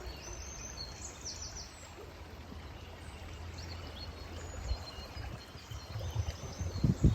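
River water flowing steadily, with small birds chirping in short high phrases over it. Near the end come a few low thumps.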